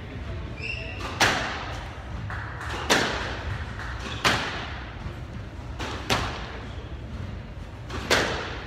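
Squash rally: sharp cracks of the ball struck by racquets and hitting the court walls, about every one and a half to two seconds, each with a short echo, over a steady low hum.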